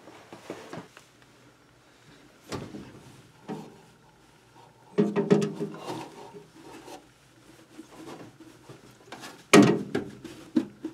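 Hands working parts into place up under a truck's dashboard against the firewall: scattered knocks, clicks and rubbing with pauses between, a busier stretch about five seconds in and a sharp knock near the end.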